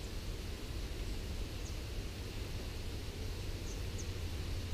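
Outdoor bush ambience: a steady low rumble and hiss, with a few faint, short, high bird chirps.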